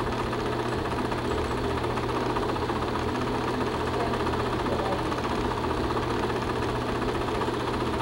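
Film projector running: a steady, fast mechanical clatter over a low, constant hum.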